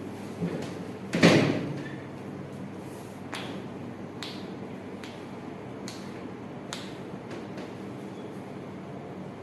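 A sharp slap-like hit about a second in, then a few faint scattered clicks, over a steady low hum.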